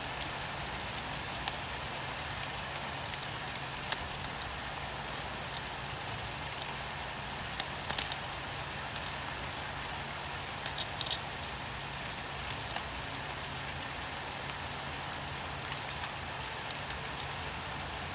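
Steady rain falling, with scattered sharp drop ticks over a low steady hum.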